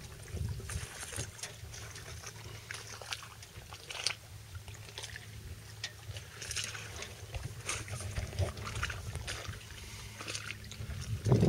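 Water lapping and trickling against a slowly moving sailboat's hull in irregular small splashes, over a steady low rumble. A single louder thump comes near the end.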